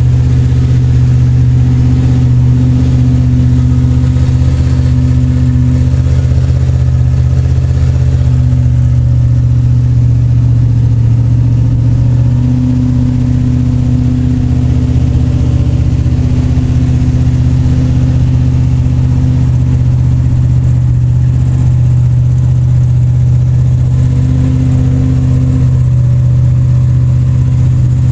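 1971 Plymouth Cuda's V8 engine idling steadily with a deep rumble, shortly after a cold start following a week of sitting.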